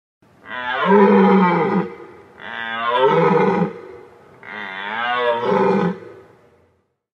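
A large animal calling three times, each call a deep, roar-like bellow lasting about a second and a half, with a falling pitch at the start of each.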